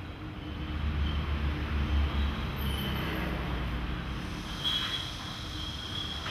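Steady low rumble of a moving vehicle, heaviest in the first couple of seconds, with a faint high squeal coming in during the second half.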